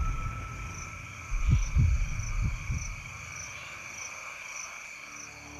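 Night bush chorus of insects and frogs: a steady high trill with a higher chirp repeating about every half second. A few low thumps sound between about one and three seconds in.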